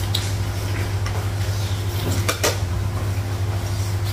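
A metal ladle clinking and scraping against a stainless steel cooking pot a few times while food is served, over a steady low hum.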